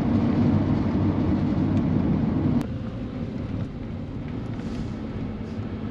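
Steady road and engine noise of a van being driven, heard from inside the cab. The noise drops to a quieter, steadier rumble a little under three seconds in.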